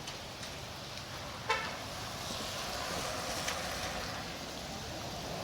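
Steady street noise of traffic on wet pavement, with one short car horn toot about a second and a half in.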